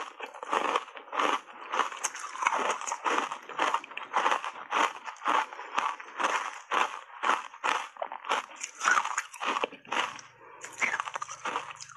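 Ice chunks coated in matcha powder crunched and chewed close to the microphone, a quick steady rhythm of about two to three crunches a second. A faint low hum joins in about ten seconds in.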